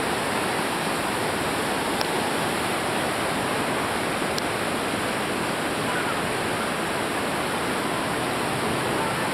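Steady rush of whitewater rapids on a big river, with two faint ticks about two seconds in and again a couple of seconds later.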